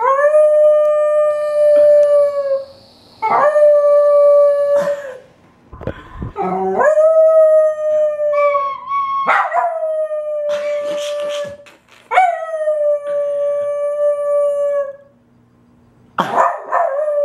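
Chihuahua puppy howling: six long howls, each rising quickly at the start, holding one steady pitch for about two seconds, then sagging at the end.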